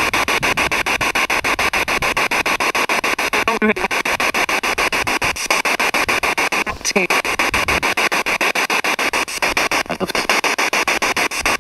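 Spirit box (a radio sweeping through stations) hissing with static, chopped into fast, even pulses about ten a second. Two brief snatches of sliding tone break through, at about four and seven seconds in.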